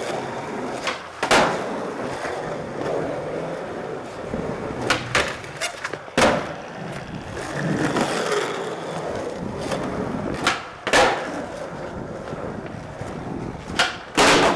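Skateboard wheels rolling on a smooth tiled hallway floor, with several sharp clacks as the board pops and lands, the loudest about a second in, near the middle, two-thirds through and at the very end after a flip trick.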